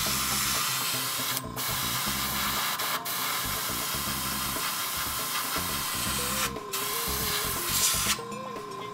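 Gravity-feed airbrush spraying paint with a steady hiss, breaking off briefly three times and stopping about eight seconds in.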